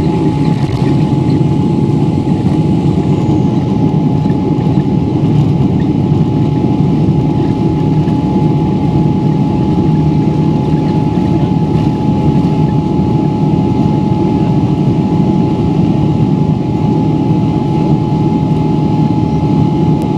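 Jet engines of a Boeing 777-300ER, its GE90-115B turbofans, at takeoff power: a loud, steady rumble with a steady whine held at one pitch.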